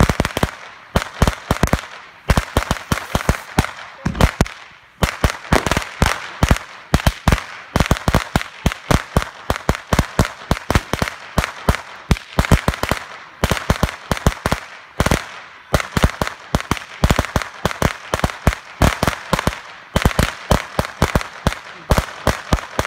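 A long string of firecrackers (a 500-cracker roll) going off, a rapid, irregular run of sharp bangs several a second, with a few short pauses.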